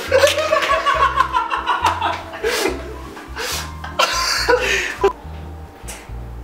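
Background music with a repeating bass line, with a person laughing and chuckling over it.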